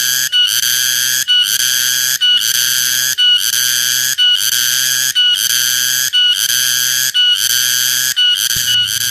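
Cicada calling very loudly, a high, rasping buzz repeated in phrases of about a second, each cut by a brief break.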